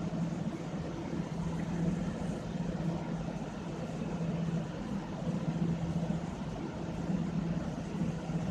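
Steady mechanical hum held at one low pitch over a continuous rumble, like a motor or engine running in the background.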